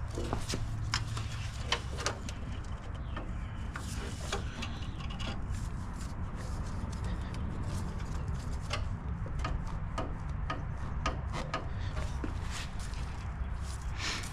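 Scattered light clicks and taps of hand tools and metal clamps while intercooler piping is fitted, over a steady low hum.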